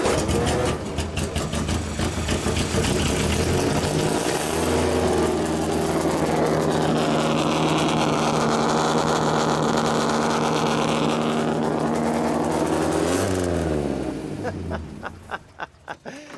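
1957 Arnott-Climax GT's Coventry Climax four-cylinder race engine catching and running unevenly for a few seconds. About four seconds in it is held at raised revs, steady for several seconds. Near the end the revs drop and the engine is shut off.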